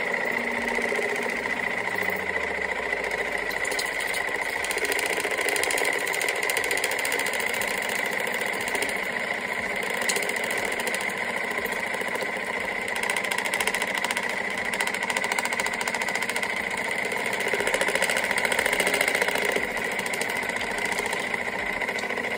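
Electric pump of a Housiwill countertop water flosser (oral irrigator) running steadily with a high-pitched hum; not quite quiet. It cuts off suddenly at the end.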